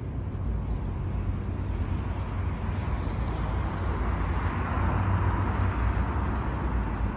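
Road traffic noise with a vehicle passing, swelling and fading about four to six seconds in, over a steady low rumble.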